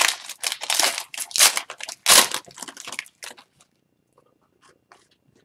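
Wrapper of an Upper Deck hockey card pack being torn open and crinkled in the hands, a run of crackling rustles for about three seconds, then a few faint clicks as the cards are handled.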